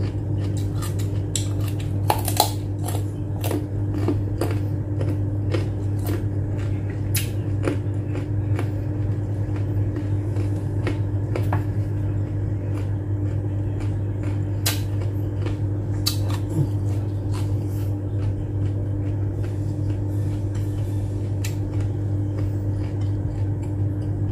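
Chewing raw carrot close to the microphone: irregular sharp crunches all through, over a steady low hum.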